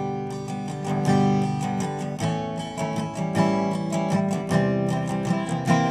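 Resonator guitar playing the opening of a song, starting abruptly with picked notes in a steady rhythm.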